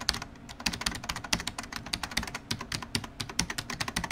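Rapid keyboard typing: many sharp key clicks, several a second, at an uneven pace.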